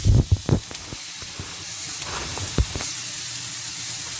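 Steak and onions sizzling on a hot grill, a steady frying hiss, with a few sharp knocks in the first half second and one more a little past halfway.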